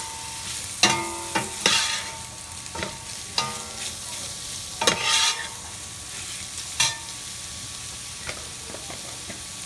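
A metal spoon stirs and scrapes shredded chicken and onions around a stainless-steel pot, with sharp clinks and scrapes against the pot, over a steady frying sizzle. The scrapes come every second or so and thin out near the end.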